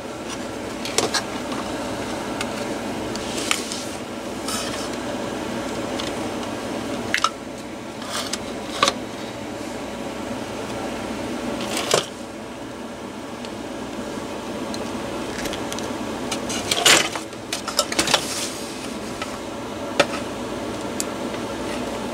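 Plastic clicks and knocks as a battery is wired up and pushed back into a cordless air compressor's plastic housing, scattered every few seconds with a busier cluster about two-thirds through, over a steady background hum.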